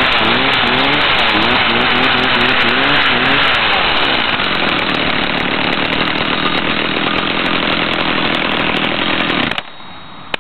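McCulloch 330 Mac Cat two-stroke chainsaw engine running, its speed rising and falling for the first few seconds before settling into steady running. It stops abruptly about nine and a half seconds in.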